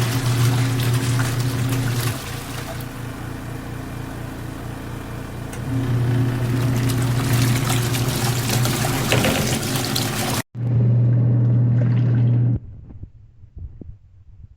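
Twin-tub portable washing machine running, its motor humming as the wash tub churns water and clothes. The hum eases off about two seconds in and picks up again near six seconds. Later the hum runs on alone and stops abruptly about twelve seconds in.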